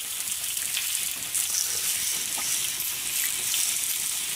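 Hot oil sizzling and bubbling steadily around pieces of food deep-frying in a pot, including frozen croquettes, with a few small scattered pops.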